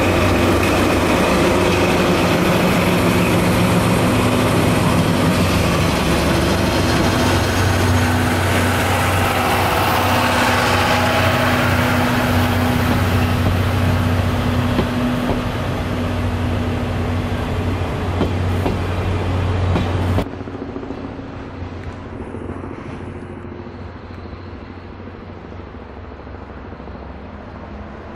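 A DE10 diesel-hydraulic locomotive passing close by, its V12 diesel engine running with a steady drone, then passenger coaches rolling past on the rails. About 20 seconds in the sound cuts to a much quieter, distant train.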